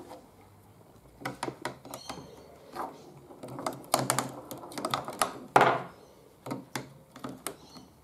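AA batteries being pressed into a plastic battery holder on a smart lock's back unit: a string of irregular clicks and knocks as each cell seats against the spring contacts, with a louder scrape a little past halfway.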